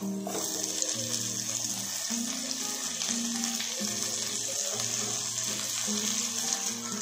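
Chopped tomatoes sizzling in hot oil with frying shallots in a pan: a steady hiss that starts suddenly as they go in. Background music with a simple melody plays throughout.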